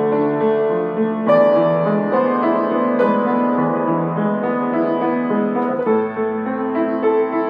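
Piano music: slow, sustained chords and melody notes, changing about once a second or so.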